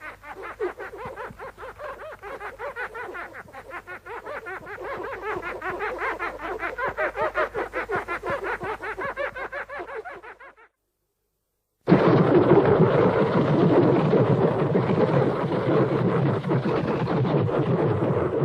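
Showa-era Mothra monster sound effects from the Toho films. First comes a rapid pulsing trill of about four pulses a second, swelling louder and cutting off about ten seconds in. After a short gap, a louder, dense rushing sound starts and slowly eases off.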